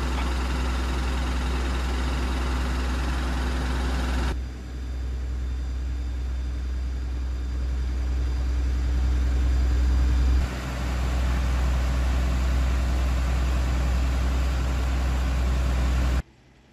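Fire truck engine running steadily with a low rumble. The sound shifts abruptly twice and cuts off just before the end.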